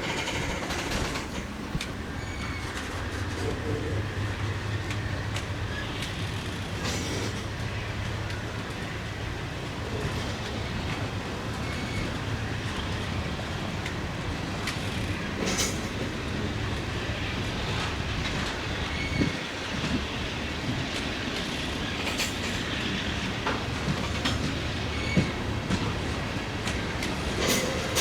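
Freight train moving slowly during switching: steady rumble of rolling railcars with wheels clacking over rail joints, a few sharp clanks and brief wheel squeals, and a diesel locomotive running underneath.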